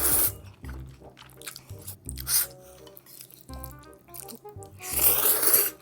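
Background music with a few loud crunching bites and chewing of food; the longest and loudest crunch comes near the end.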